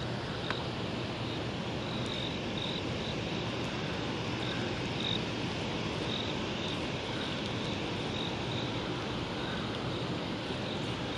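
Steady rushing noise of the fast, churning tailwater below the dam, with insects chirping faintly and intermittently above it.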